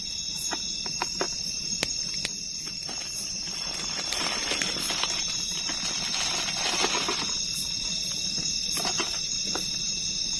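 Night insects, crickets among them, chirring steadily in a high continuous chorus. Scattered light clicks and a stretch of rustling about four to seven seconds in come from items being handled close by.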